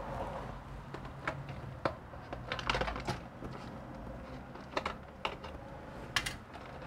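Scattered light clicks and taps, irregular and a few per second at most, over a low steady hum.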